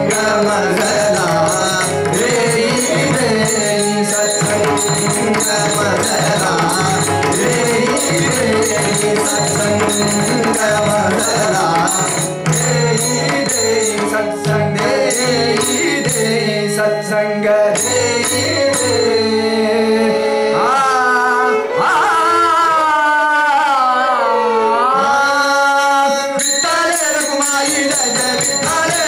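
Indian devotional music: a violin plays a melodic passage full of sliding notes over a steady harmonium drone and tabla rhythm.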